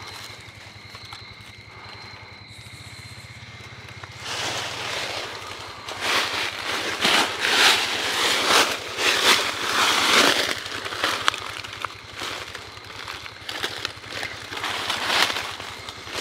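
Footsteps crunching and rustling through dry leaf litter and brush, with twigs scraping. They are irregular and come thick and loud from about four seconds in, after a quieter start with a faint steady high tone.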